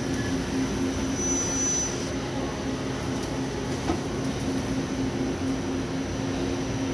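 Daewoo Puma CNC turning centre running, a steady mechanical hum with a brief faint high whine about a second in.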